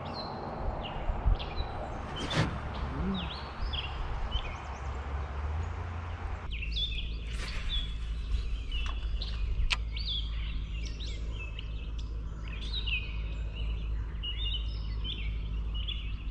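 Small birds chirping and calling repeatedly over a steady low rumble of outdoor noise. A wider hiss under the birdsong cuts off suddenly about six seconds in, and two sharp clicks stand out, one about two seconds in and one nearer the middle.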